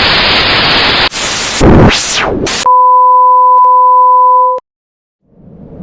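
Intro sound effects: a burst of loud TV-style static hiss, then glitchy noise with quickly sweeping tones, then a steady two-tone beep that lasts about two seconds and cuts off suddenly. After a short silence, a low rumble of noise fades in near the end.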